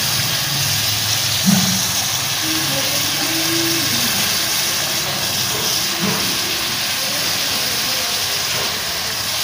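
Carrots and capsicum frying in hot ghee in an aluminium karahi, giving a steady sizzling hiss.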